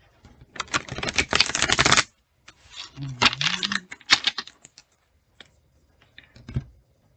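A tarot deck being shuffled: a rapid fluttering riffle of card edges lasting about a second and a half, then a second shorter burst of shuffling and a few scattered taps of cards.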